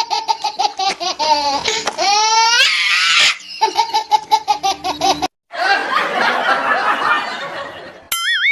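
High-pitched laughter in quick, evenly spaced 'ha' pulses, broken by rising glides about two seconds in. It cuts off suddenly about five seconds in, and a warbling tone sounds near the end.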